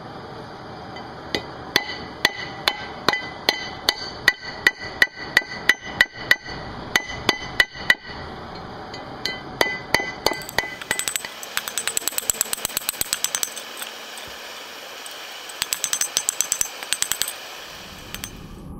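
Hammer blows on hot steel resting on a Ford F-150 brake rotor used as an anvil, each strike ringing metallically. Steady blows at about two to three a second, then a quicker run of lighter strikes that stops shortly before the end.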